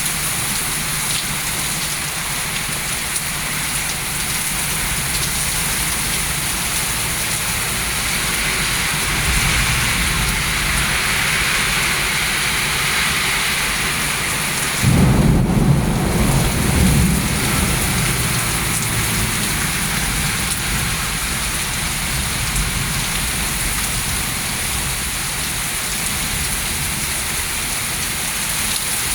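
Heavy rain falling steadily in a thunderstorm. About halfway through, a loud thunderclap breaks in and rumbles on for a few seconds.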